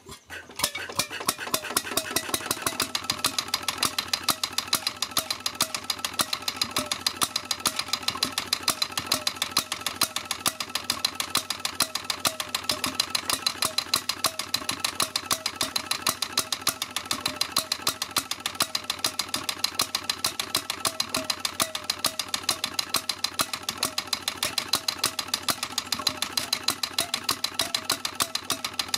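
Sunshine 7 hp portable single-cylinder stationary engine starting as its flywheel is turned by hand, catching about half a second in and then running with a steady, regular beat of sharp strokes.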